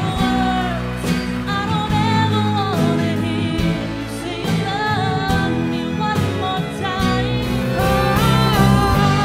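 A woman sings a song live with a backing band and orchestra: drums keep a steady beat under bass, guitar and bowed strings.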